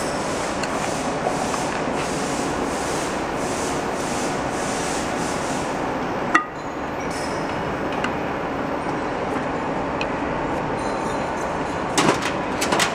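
Steady mechanical hum and hiss of workshop machinery, with one sharp clack about six seconds in and a few quick clicks near the end as hands handle metal parts of the tube filling machine.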